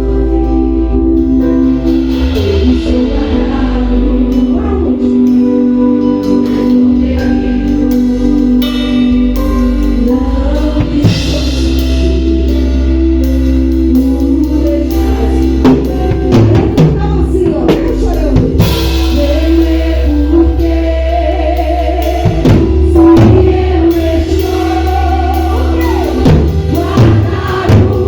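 Music with singing over a steady bass, with drum kit hits coming in more and more from about halfway through.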